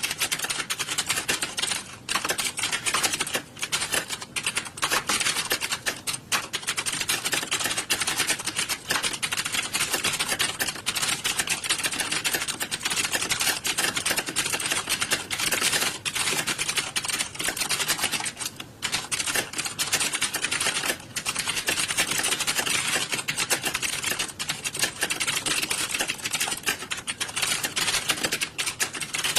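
Fast, continuous typing on a keyboard during a typing-speed test: a dense stream of key clicks with a few brief pauses.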